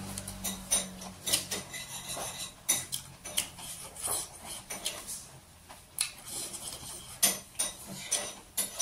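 Irregular clinks and clicks of a plate and utensils being handled while eating, close to the microphone.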